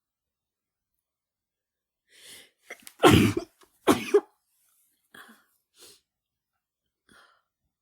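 A woman sneezing twice, the sneezes about a second apart, after a short in-breath, followed by a few faint breaths. The sneezes are brought on by chhinkni, a sneeze-inducing herb, while she has the flu.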